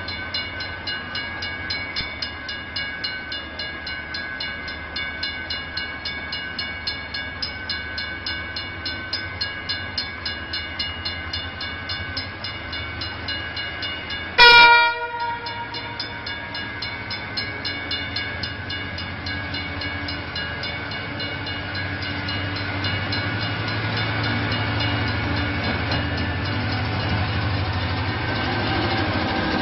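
A warning bell rings steadily about four times a second while a San Martín line diesel train approaches; about halfway through the train gives one short, loud horn blast, and a low rumble then grows louder as the train draws near.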